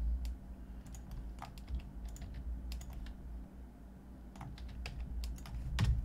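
Computer keyboard being typed on: scattered, irregular keystrokes, some in quick pairs, over a low steady hum.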